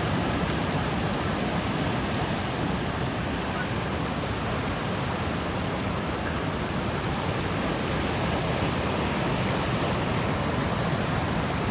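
Fast-flowing floodwater rushing, a steady, even wash of water noise with no breaks.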